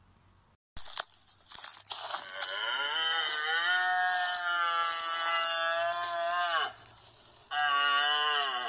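Cow mooing twice: a long call of about four seconds whose pitch drops at its end, then a shorter one near the end, with short rustling crackles between.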